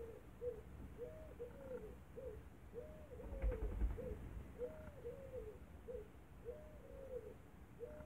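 Short, rising-and-falling animal calls repeated about twice a second, with a dull thump about three and a half seconds in.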